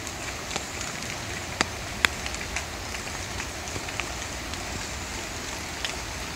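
Steady rush of a rain-swollen, muddy river, with scattered sharp drips of water falling from the trees, two of them louder about one and a half and two seconds in.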